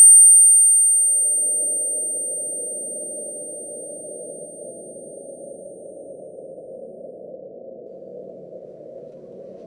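A steady, high-pitched electronic ringing tone, loudest at first and fading away over about seven seconds. A low steady drone comes in underneath about a second in.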